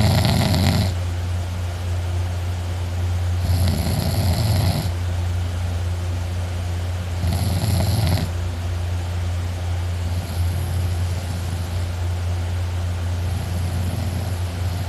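A person asleep sitting up in a chair, snoring loudly: one snore about every three and a half seconds, each lasting about a second, the last two fainter, over a steady low hum.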